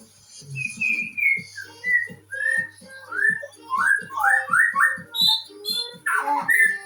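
A run of whistled notes: slow falling notes at first, then quicker short rising slurs in the second half.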